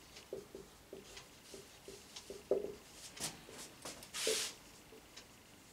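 Marker pen writing on a whiteboard: a quick run of short, faint squeaks and scratches as letters are drawn, with one longer scratchy stroke about four seconds in.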